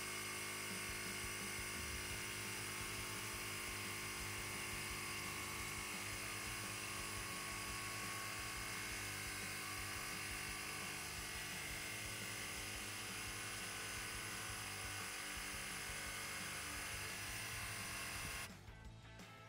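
Ryobi USB Lithium compact high-pressure inflator's small electric compressor running steadily, then cutting off about a second before the end.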